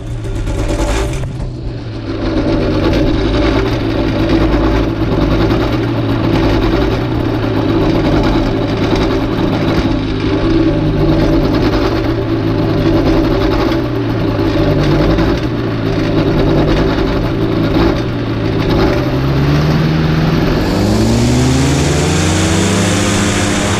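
Paramotor trike engine and propeller running steadily at low throttle, then revving up about 19 seconds in, its pitch climbing and a rushing noise growing over it.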